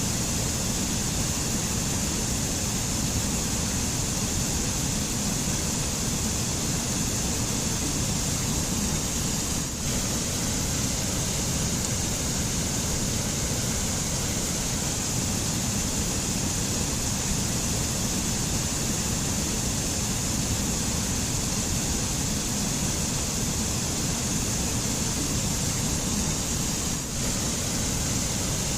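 White water of a mountain stream rushing over rocks: a steady, unbroken rush of water, dipping briefly twice.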